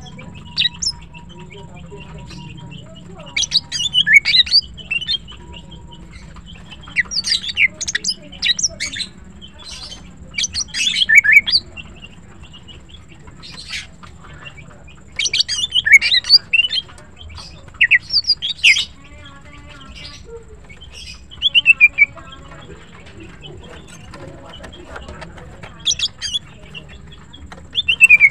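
Female greater green leafbird (cucak ijo) calling: short bursts of quick chirps and trills, repeated every second or two with brief pauses. It is the call that keepers use to draw a male.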